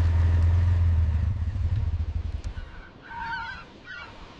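ATV engine running with a steady low drone that fades away over the first two seconds or so. About three seconds in, a few short, wavering, honking bird calls follow.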